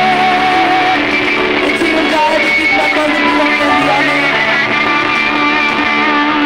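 Live worship band playing a song with keyboard, guitar and drums.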